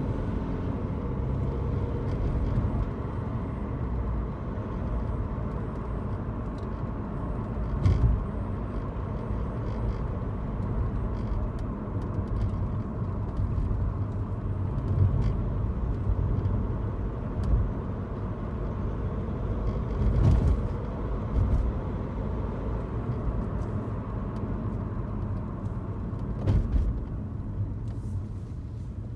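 Road and engine noise inside a moving car's cabin, a steady low rumble, broken by a few short knocks spread several seconds apart.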